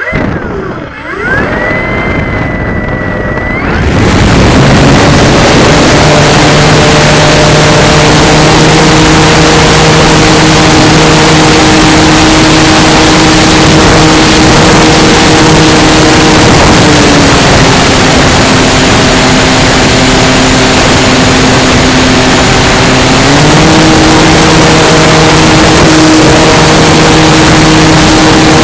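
Onboard sound of the E-flite Carbon-Z Cessna 150's electric motor and propeller in flight, with heavy wind rush over the camera's microphone. It opens with a quieter high whine, the full loud rush comes in about four seconds in, and the propeller's steady hum drops in pitch about 17 seconds in and rises again about 23 seconds in as the throttle is eased back and opened up.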